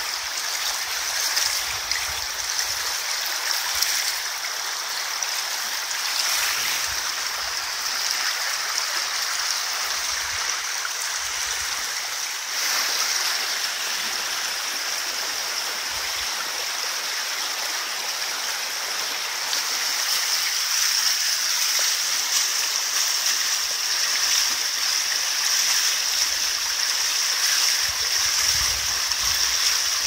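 Rushing water of a stream or small river flowing steadily: an even hiss with no pitched sounds. It steps in level about 12 seconds in and grows a little louder from about 20 seconds on.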